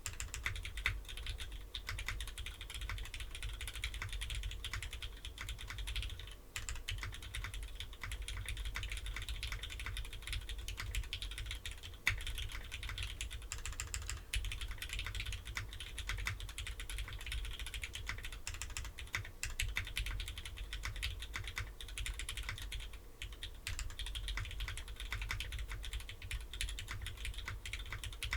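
Continuous typing on a mechanical keyboard with linear Cherry MX Black Hyperglide switches, lubed and filmed, mounted on an aluminum plate with no foam, under GMK keycaps. The keystrokes are dense and irregular, with brief pauses about six seconds in and again about 23 seconds in.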